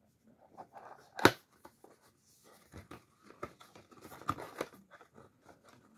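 Packaging and parts being handled at close range: scattered light clicks and rustles, with one sharp click about a second in and a few more knocks near the fourth second.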